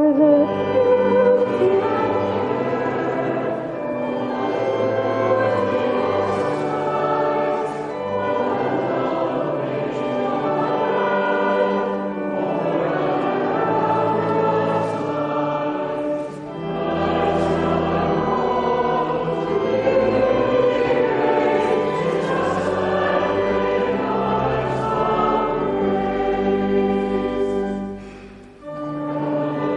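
A choir singing a hymn with instrumental accompaniment, in sustained phrases with short breaks between them.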